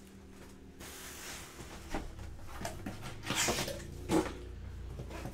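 Cardboard shipping box being opened and handled: scattered rustles and scrapes of the flaps, a longer scrape a little past the middle, and a sharp knock about four seconds in.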